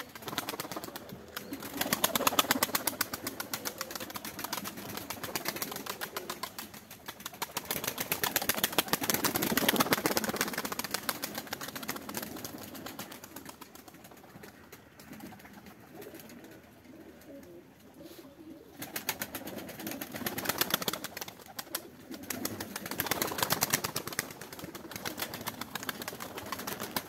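Domestic pigeons cooing, swelling and fading in waves, under a fast, even crackle that weakens for a few seconds in the middle.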